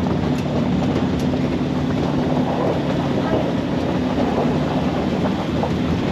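A truck's engine running steadily while the vehicle jolts along a rough dirt road, heard from the open back of the truck, with road noise and wind mixed in.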